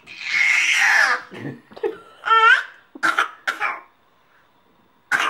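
Short bursts of breathy, cough-like laughter, with an 8-month-old baby's high-pitched squeal about two seconds in.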